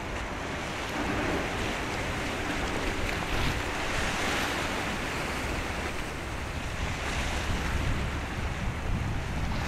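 Water washing and wind buffeting the microphone: a steady, noisy rush with a low rumble underneath, swelling a little around the middle.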